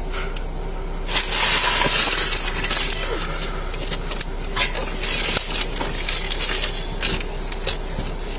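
Close rustling and scraping, loudest from about one to two and a half seconds in, with scattered light clicks and clinks: belongings being handled during a search.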